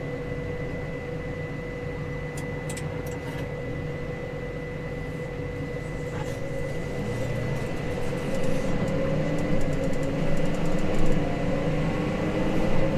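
Case Maxxum 150 tractor heard from inside its cab: a steady engine drone with a constant whine. From about seven seconds in, the engine note rises and grows a little louder.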